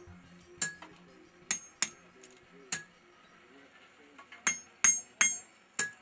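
Hand hammer striking a knife blade being forged on an anvil, each blow ringing. There are four spaced strikes in the first three seconds, a pause, then four quicker strikes near the end.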